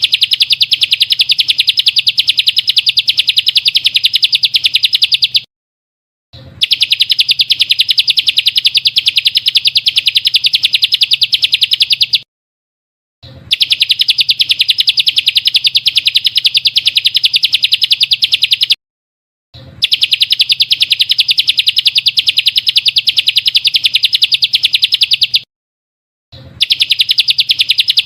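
Small songbird's rapid, high, even trill, played as a looped recording: about five bursts of five to six seconds each, separated by short gaps of dead silence.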